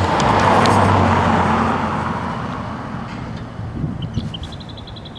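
Toyota Mark II Tourer V's 1JZ-GTE twin-turbo straight-six, fitted with a pod filter, driving past close by. The sound is loudest about half a second in, then the engine note drops in pitch and fades as the car pulls away.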